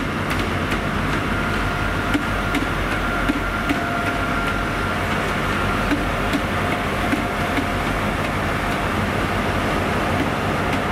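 A diesel multiple-unit train, two units coupled, running past steadily and drawing away. Its wheels click over the rail joints throughout, over a steady engine rumble and a faint held whine.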